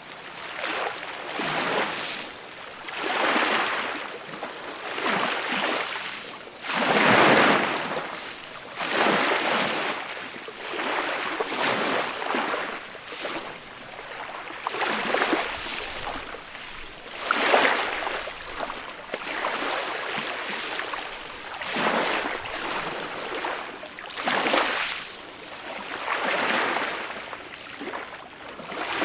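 Small, gentle sea waves breaking and washing up the shore, one soft surge of surf every two to three seconds.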